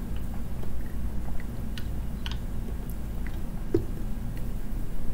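A person drinking: a few faint swallowing and mouth sounds and small clicks over a steady low hum.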